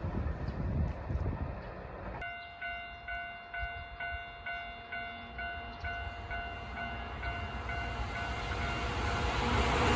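Japanese level-crossing warning bell starts about two seconds in, sounding its electronic ding about twice a second. Near the end a Keihan train's running noise grows steadily louder as it approaches.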